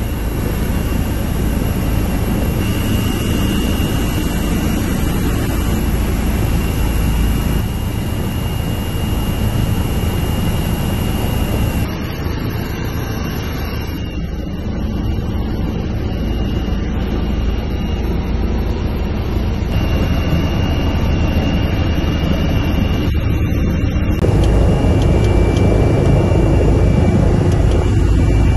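Helicopter turbine engine and rotor running at close range: a loud, steady heavy drone with a thin, steady high turbine whine over it.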